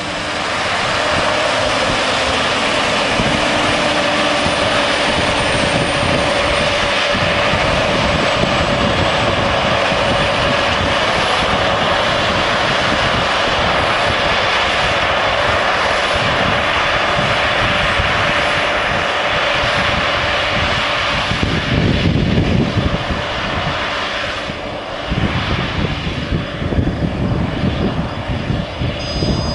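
Claas Lexion 580R combine harvester running at work: a loud, steady drone of engine and machinery with a held hum. Several seconds from the end the low end breaks into uneven rumbles and the level wavers.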